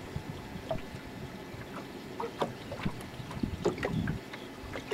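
Small waves lapping and slapping irregularly against a fishing boat's hull, with light wind on the microphone.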